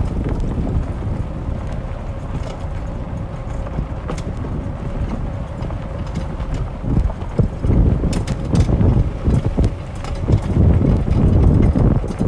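Wind buffeting the microphone over the low rumble of a cart being driven, with a faint steady whine; from about halfway through it turns choppier, with jolts and rattles as it goes over rougher ground.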